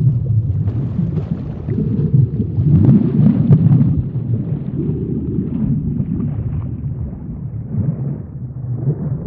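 Underwater ambience sound effect: a low rumbling water noise that swells and eases, loudest about three seconds in, with faint bubbly crackles above it.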